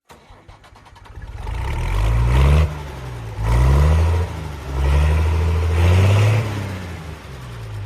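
Vehicle engine accelerating through the gears: its pitch climbs and drops back three times as it shifts up, loudest near the top of each climb.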